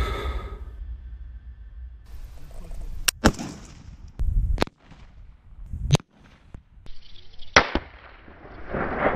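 Sniper rifle shots: a series of sharp cracks, two close together about three seconds in, more a little later, and the loudest near the end as the bottle cap is shot off.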